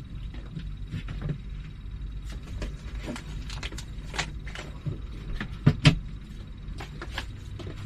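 Rummaging through stored items: scattered clicks, clatters and light knocks of things being moved about, with two sharper knocks close together about six seconds in, over a steady low hum.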